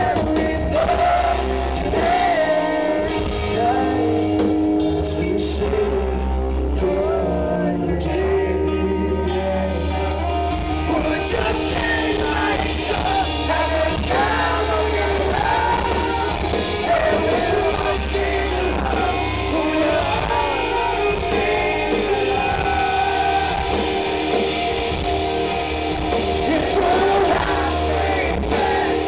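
Live rock band playing a song with a male lead singer over electric guitars, bass and drums, recorded from the audience.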